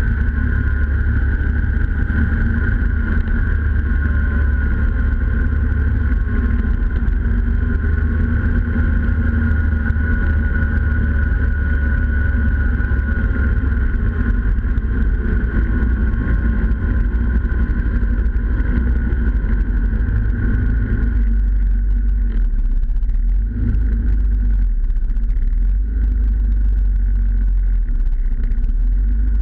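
Snowmobile engine and track running steadily at speed, heard from a camera mounted on the machine's own hood. About two-thirds of the way through the higher engine tone softens while the low rumble carries on.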